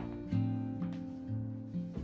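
Background music: a gentle acoustic guitar track with sustained plucked notes.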